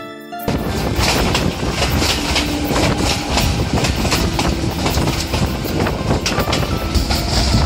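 Moving passenger train: a steady rumble and rattle with the irregular clack of wheels over rail joints.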